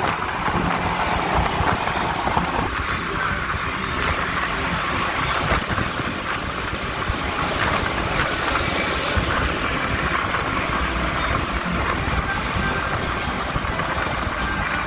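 Steady road noise inside a vehicle cruising on a concrete freeway: tyre and engine noise with no sharp events.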